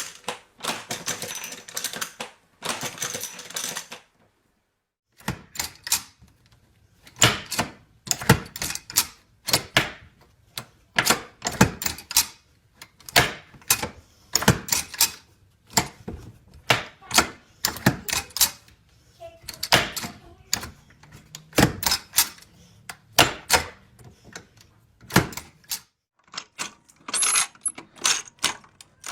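Hand-operated machine-gun ammunition belt loader being worked: a few seconds of rapid rattling clicks, then a steady series of sharp metallic clacks, about one a second, as the handle is cycled to seat cartridges into the belt.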